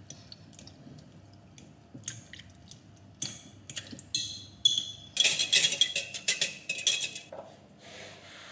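Cutlery clinking and scraping against dishes: light taps at first, then louder clinks and a quick run of clinks in the middle.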